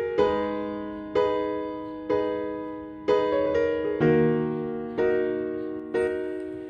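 Background music: slow chords struck about once a second, each ringing and fading before the next.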